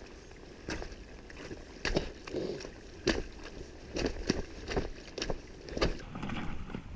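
A trail runner's footsteps squelching in wet, churned mud, an uneven series of steps at about two a second.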